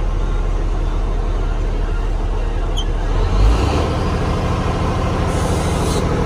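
Diesel engine of an International 9200i truck idling steadily, heard from inside the cab. There is a low thump about halfway through, and a short hiss of air near the end.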